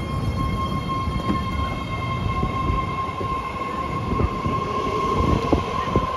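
BART train pulling out along the platform, running with a steady high whine over a low rumble of wheels on rail. A few sharp knocks come near the end as the wheels pass over the track.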